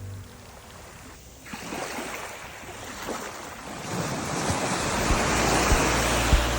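Rushing water, a noisy wash that swells up about a second and a half in and keeps building, with a low rumble and a few light knocks near the end.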